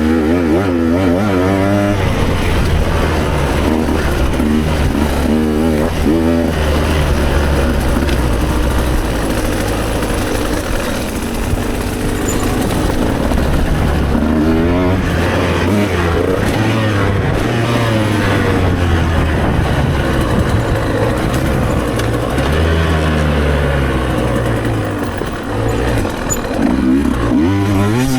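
Enduro motorcycle engine being ridden hard off-road. Its pitch climbs and drops repeatedly as the throttle is opened and shut through the gears.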